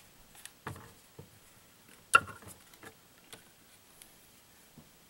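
Scattered light clicks and knocks from an RC truck and its plastic stand being handled, the loudest about two seconds in.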